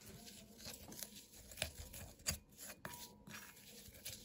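Wooden spoon stirring dry powdered herbs in a bowl: faint, irregular scrapes and light taps.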